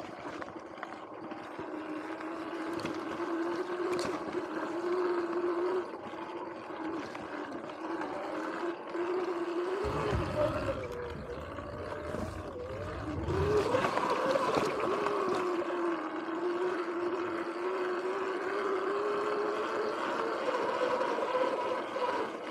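Sur-Ron X electric dirt bike's motor whining as it rides a dirt trail, the pitch rising and falling with speed over tyre and wind noise. About ten seconds in, a few seconds of low rumbling as the tyres cross a wooden bridge.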